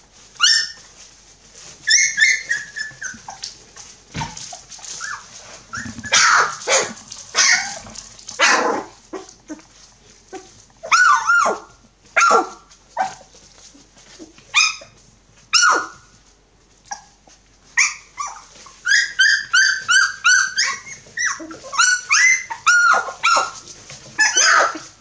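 Young bearded collie puppies yipping and whining in short, high-pitched calls that come in bursts with quiet gaps between them. About three-quarters of the way through there is a quick run of yaps.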